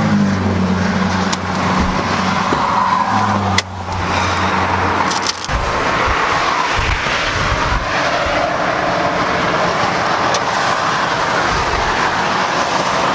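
Car on the road: its engine runs at a steady note for about the first five seconds, then fades under a steady rush of tyre and wind noise.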